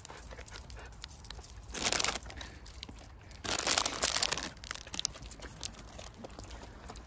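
Rustling and crinkling as dog treats are handed out, in two bursts about two and about four seconds in, with small crunches and clicks between.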